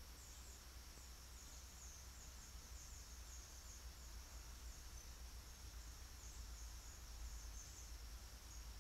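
Faint forest ambience: a steady high-pitched insect drone with many short high chirps through it, over a low hum.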